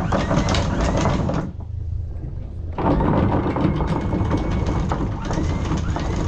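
A sailboat's anchor chain rattling and clanking at the bow, a dense run of metal clicks that stops for about a second near the start and then resumes, over a low rumble of wind on the microphone.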